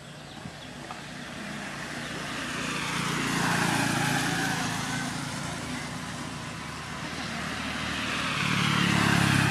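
Motor vehicles passing on the road, the first a motorbike: engine noise swells and fades about four seconds in, and a second vehicle swells up near the end.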